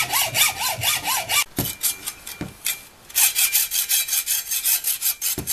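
Hand hacksaw cutting a golf club head off its metal shaft in fast, even strokes, with a squeal at each stroke at first. The sawing stops for about a second and a half, with a couple of knocks, then starts again.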